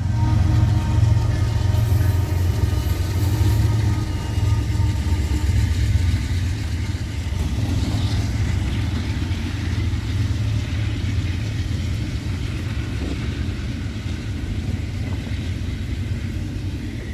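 Intermodal freight train rumbling steadily past at low speed, a deep, heavy rumble that slowly fades toward the end.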